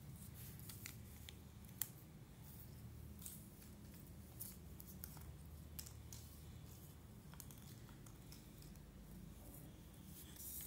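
Cardboard jigsaw puzzle pieces being slid across a hard floor and pressed together: faint scrapes and small clicks, one sharper click about two seconds in, over a low hum.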